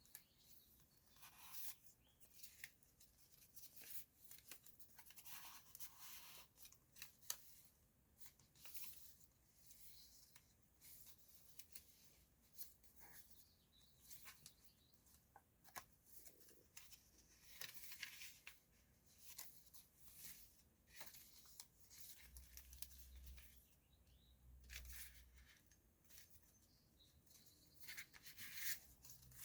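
Faint paper rustling and crinkling as the pages of a small handmade junk journal are turned and handled, in short, irregular bursts, with a brief low rumble a little after two thirds of the way through.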